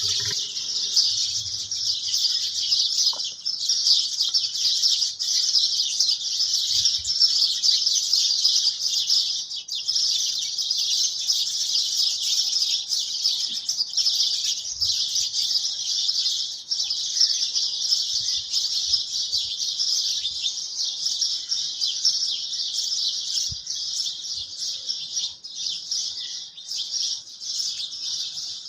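Dense, steady chirping of many birds, a continuous high-pitched chorus with no pauses.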